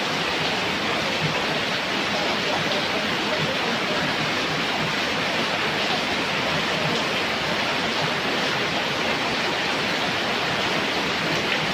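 Heavy tropical rain pouring down in a steady, even hiss.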